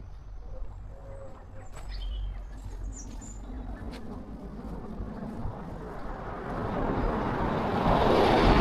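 A car passing on the village road, its noise swelling to a peak near the end. A few bird chirps come about two to three seconds in.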